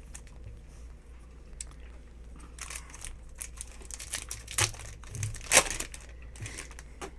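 Wrapper of a 2022 Panini Donruss Optic football card pack crinkling and tearing as it is ripped open by hand: a run of sharp crackles, loudest about five and a half seconds in.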